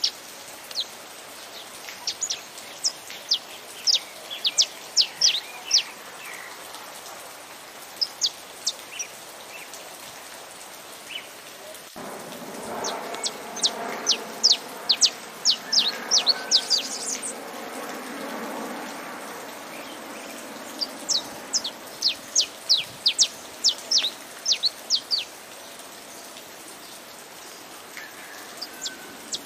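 Saffron finch singing in several runs of quick, sharp, high notes, over steady rain. A louder, lower wash of sound swells for several seconds midway and then fades.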